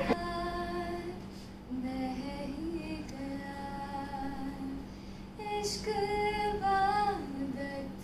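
A young woman singing a song unaccompanied, in long held notes that glide up and down, with short breaks between phrases.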